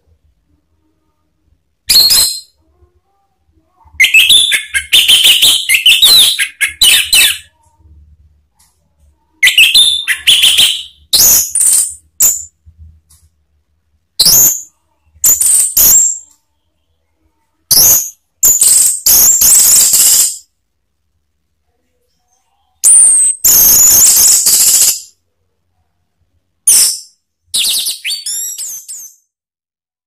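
Orange-headed thrush singing loud, full song in bursts of quick, high-pitched, whistled and chattering phrases, with short pauses of one to three seconds between them.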